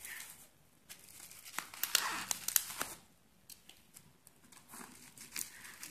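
Bubble wrap crinkling and crackling as hands handle and pull at it, with a cluster of sharp crackles about two seconds in and fainter rustling after.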